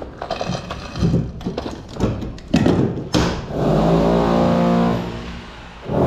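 Metallic clicks and knocks from a hand riveter and rivets being handled, then a small power-tool motor running steadily for about two seconds before it winds down.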